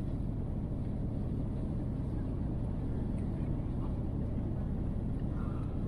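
Steady low rumble of an Airbus A350-900 cabin on final approach, the Rolls-Royce Trent XWB engines and the airflow over the extended flaps heard from a window seat behind the wing.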